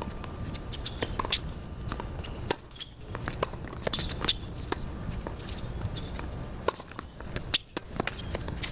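Tennis rally on a hard court: sharp, irregular pops of the ball off the strings and the court, with a crisp racket strike about four seconds in, over a steady low rumble.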